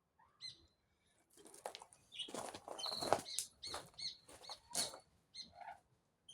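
Birds chirping: short high chirps, with a dense run of harsher, scratchier calls through the middle.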